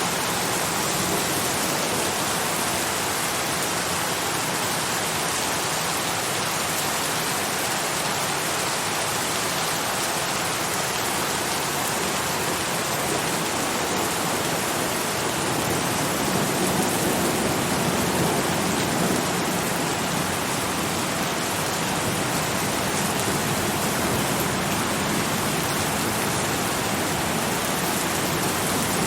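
Steady heavy rainfall, a dense even hiss of drops. The low end swells slightly about halfway through.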